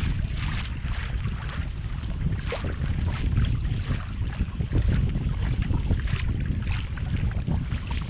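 Wind buffeting the camera microphone in a steady low rumble, with small waves slapping irregularly against a kayak's hull.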